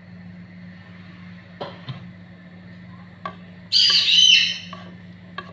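A brief loud, high-pitched chirping call about four seconds in, over a steady low hum. A few light knocks of a wooden spatula against the pan come as the sauce is stirred.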